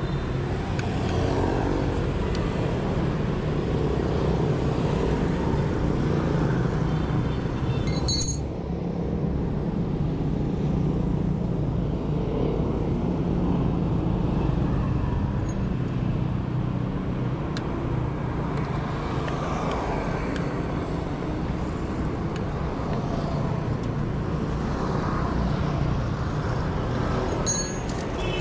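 Steady street traffic dominated by motorbike engines running, with a sharp click about eight seconds in and another near the end.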